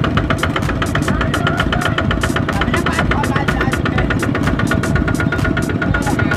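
Single-cylinder diesel engine of a two-wheel walking tractor (power tiller) chugging steadily with a fast, even beat while hauling a loaded trailer.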